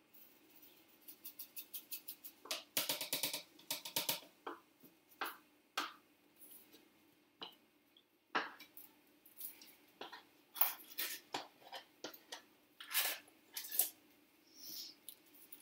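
Salt being measured out of a canister into a measuring cup: a quick run of light ticks, then a dense rattle of poured salt about three seconds in, followed by scattered clicks and knocks of the canister and cup being handled, over a faint steady hum.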